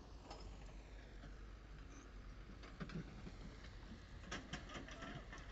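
Quiet outdoor background: a steady low rumble, with a short run of faint clicks about four seconds in.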